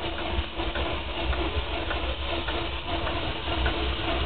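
Miniature steam locomotive Mad Bess moving slowly, with a steady hiss of steam escaping from the cylinder drain cocks over the low running noise of the engine.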